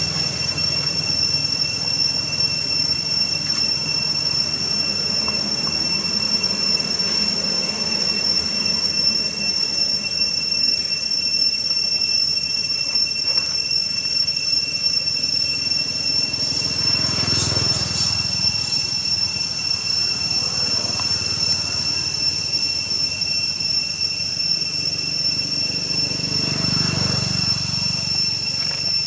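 Steady, high-pitched insect drone, two even tones held without a break, over a faint outdoor hiss.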